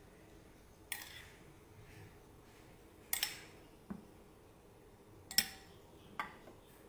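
Metal spoon clinking and scraping against a ceramic bowl and plate as food is spooned out: five or so sharp clinks with a brief ring, the loudest about two-thirds of the way through.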